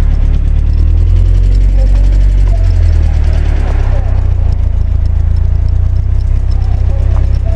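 Loud, steady low rumble of wind and road noise on a bicycle-mounted microphone while riding along a street, with faint voices in the background.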